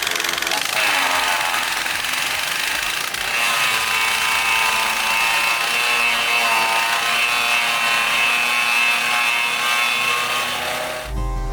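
A 16 HP wood chipper running and shredding material: a loud, harsh grinding with a steady high whine that joins about three seconds in. It cuts off suddenly near the end.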